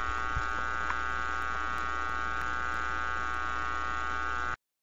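Steady electrical hum and buzz, with a few faint clicks, that cuts off suddenly into silence near the end.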